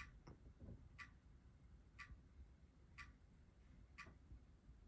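Recorded clock ticking played through Creative Pebble V3 desktop speakers: sharp, even ticks once a second, faint overall. A few soft low knocks just at the start.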